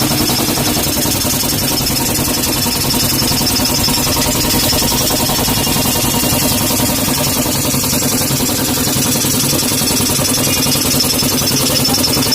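Air compressor driven by a 2 HP electric motor, running steadily with a fast, even pulsing beat and a low hum.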